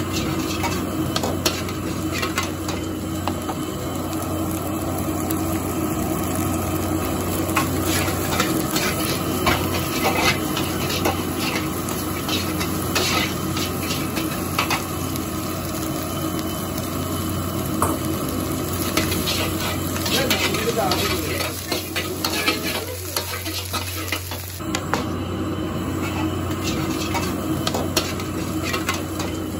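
Diced chicken and vegetables sizzling in a hot wok, with a metal spatula scraping and clanking against the pan as they are stir-fried. A steady low hum runs underneath.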